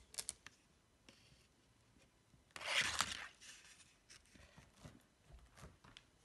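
A marble running down a cardboard ramp and around a cardboard loop-de-loop: a short rolling rush of just under a second about three seconds in, with a few light clicks and taps before and after.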